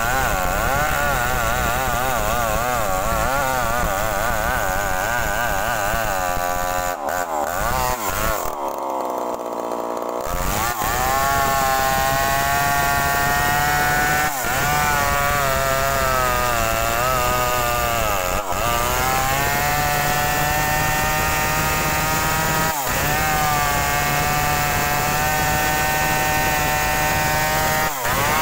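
Falcon two-stroke chainsaw cutting through a felled rubber-tree trunk under load, its pitch wavering as the bar bites. About seven seconds in it drops toward idle for a few seconds, then revs back up and runs steady and high through the cut.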